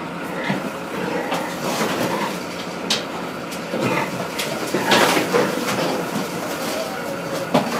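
Livestock truck loaded with pigs: a steady running noise with irregular metal knocks and rattles, a few seconds apart.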